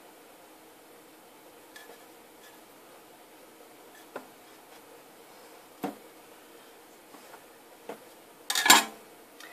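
Soap bars and cutting tools being handled on a hard work surface: a few light scattered knocks and clicks, then a louder clatter near the end.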